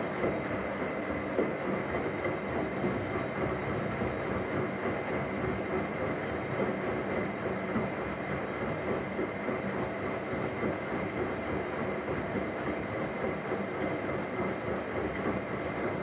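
Myria MY1506 front-loading washing machine in the wash phase of a 90 °C cotton drum-clean cycle: the drum turns steadily, water and suds slosh against the door glass, and a steady high motor whine runs throughout.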